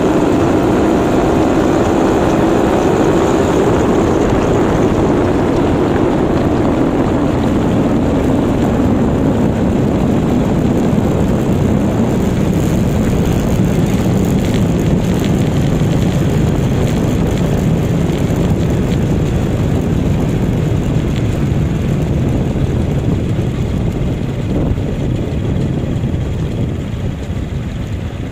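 Honda XRM/RS125 single-cylinder four-stroke engine, bored out to 57 mm with stock carburettor, stage 2 cams and a Raider 150 exhaust, running under way as the motorcycle is ridden. The engine note slowly falls in pitch and gets a little quieter as the bike slows down.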